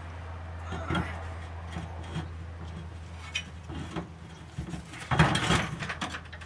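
Knocks and scrapes of a heavy wood-and-iron birdhouse being handled and set onto a gate post, with a short clatter about a second in and the loudest, longest clatter a little after five seconds, over a steady low hum.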